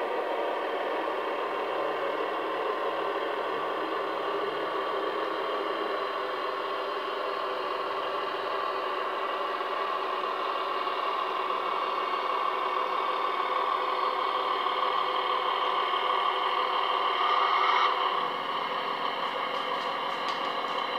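Diesel engine sound of a model DB class 211 (V 100) diesel-hydraulic locomotive, played by its sound decoder through a small loudspeaker and running steadily, with little deep bass. Near the end the engine note swells briefly and then settles to a lower, steadier note.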